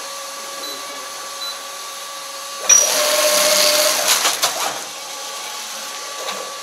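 EarthPack FR-102 vegetable flow-wrapping machine running with a steady hum, then, a little under three seconds in, a loud hissing, whirring rush for about two seconds with a quick run of sharp clicks near its end as a bundle of vegetables is wrapped in film and sealed.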